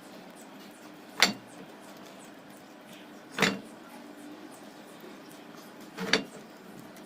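Three sharp knocks, spaced about two to three seconds apart, over a faint steady workshop background.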